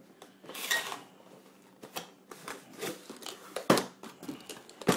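Cardboard box and packaging being opened and handled: scattered rustles and scrapes, with a few sharp knocks and clicks, the loudest near the end.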